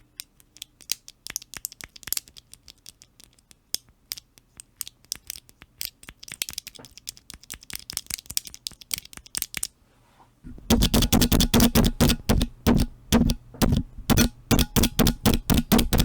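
Cherry MX Black linear key switches being pressed repeatedly: light, irregular clicking and scratchy rattling at first, then about ten seconds in a much louder run of rapid clacks, several a second, each with a deep thud.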